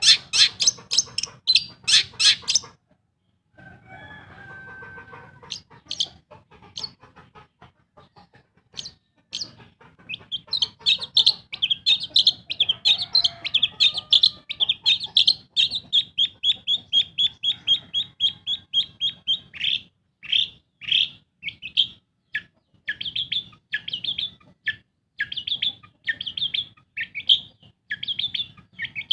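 Long-tailed shrike (pentet) singing: a fast scratchy chatter, a short pause, a long rapid high trill through the middle, then a string of short repeated calls at about one and a half a second.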